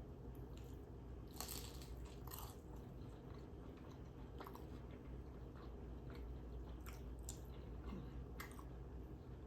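Close-miked chewing with wet mouth clicks and a few crisp crunches, the sharpest about a second and a half in and again near the end.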